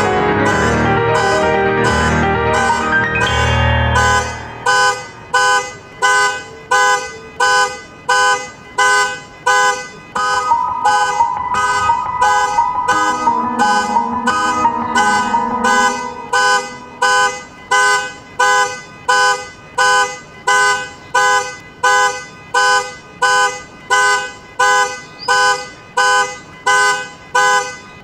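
Piano chords end about four seconds in, and a car alarm takes over, honking its horn in a steady pulse of about three honks every two seconds. A few held piano notes sound over the honking in the middle.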